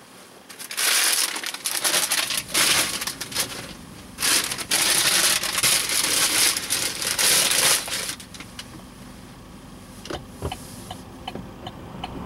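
Loud crinkling and rustling of something being handled close to the microphone, in several long stretches. Near the end a car's turn-signal indicator starts ticking steadily, a little more than twice a second.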